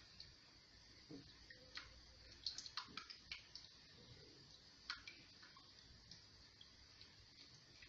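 Faint scattered clicks and taps of a ladle stirring thick flour porridge (asida) in a cooking pot, busiest about two and a half to three and a half seconds in, with a sharper tap near five seconds.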